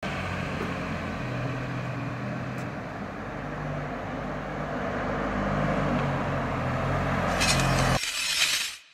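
Outdoor street ambience with steady traffic noise and a low engine drone. Near the end there is a brief bright hiss, and the low drone cuts off suddenly.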